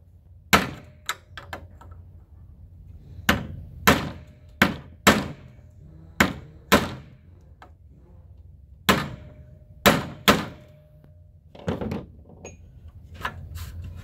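Hammer blows, about fifteen sharp knocks coming in clusters of two or three with short pauses between, knocking down the stop on a sunroof slide track with a flat tool so the slide can come out.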